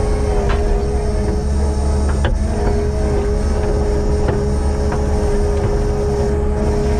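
Kubota compact track loader's diesel engine running steadily under load, with a steady whine over the low rumble and a few light knocks as the log grapple works.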